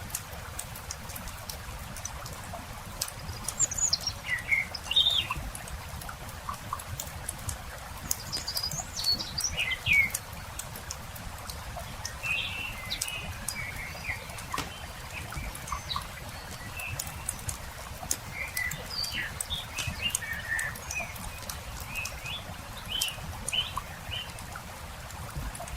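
Campfire crackling with frequent small sharp pops, while small birds chirp and twitter in short bursts throughout.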